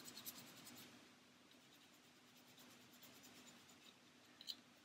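Coarse sandpaper scrubbing a small plastic model part in quick back-and-forth strokes, sanding off raised ejector pin marks. The strokes stop about a second in, leaving near silence with a faint tick near the end.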